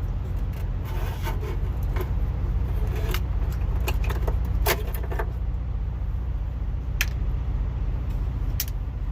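Irregular metallic clicks and clinks, like small hand tools or loose metal parts being handled, over a steady low hum.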